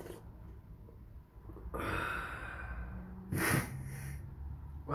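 A man's noisy breaths close to the microphone: a long airy breath about two seconds in and a shorter, louder one a second and a half later, over a faint low steady hum.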